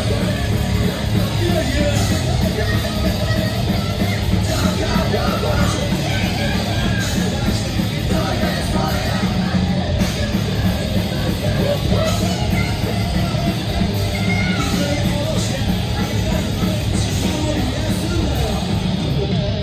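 Live rock band playing loud: drums, distorted electric guitar and keyboard under a vocalist singing and shouting into a microphone.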